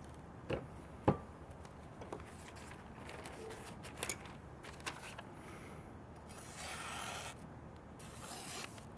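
A few light knocks as things are set down, then two rustling, rasping stretches in the second half as a very thin, freshly sharpened knife push-cuts through damp phonebook paper.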